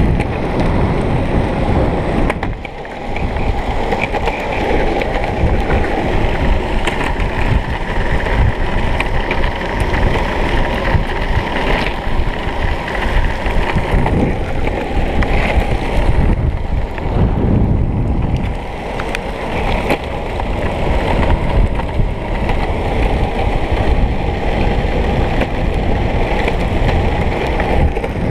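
Wind buffeting a GoPro's microphone as a freeride mountain bike rolls fast downhill, with the tyres rumbling over a rough path and frequent small knocks from bumps. The noise eases briefly twice, about two and a half seconds in and again a little past the middle.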